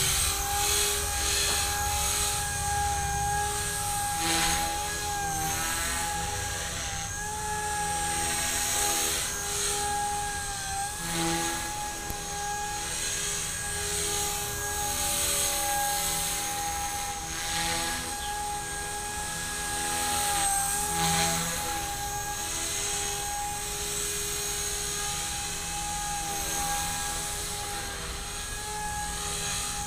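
Blade 180 CFX electric RC helicopter with Lynx main and tail blades in flight: its motor and rotors give a steady high whine that dips slightly in pitch now and then as it is flown around.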